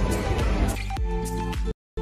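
Background music with held notes and a steady beat; it cuts out to silence for a moment near the end.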